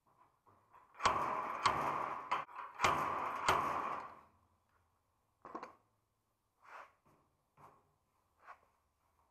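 Welder stitch-welding a butt joint in sheet steel, probably a bonnet patch panel: a few crackling welds of about a second each in quick succession, then several short tack blips about a second apart.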